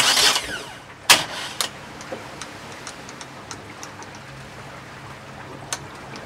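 Sharp crackling bursts as a screwdriver is pressed across a boat engine's starter terminals to jump-start it, a loud one at once and another about a second in, then faint scattered ticks over a low steady hum.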